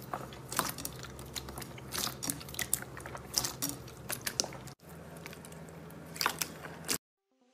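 Slime being handled and squeezed up close, giving irregular crackling pops and sticky clicks. It breaks off for an instant about five seconds in and stops abruptly near the end.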